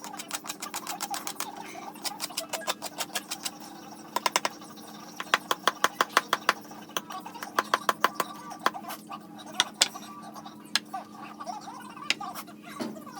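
Runs of sharp, quick clicks, several a second, over a steady low hum.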